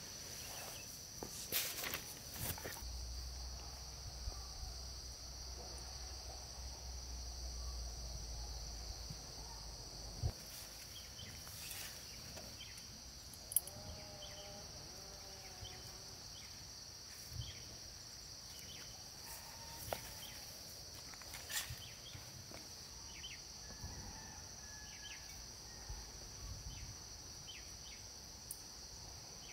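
Steady high-pitched drone of insects, like crickets, with scattered sharp clicks and light rustles of hands working soil through plastic mulch.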